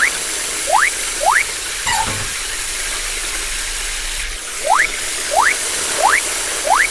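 Cartoon sound effects: short rising squeaky whistles, about one and a half a second, three near the start and four more from about two-thirds of the way through, over a steady hiss.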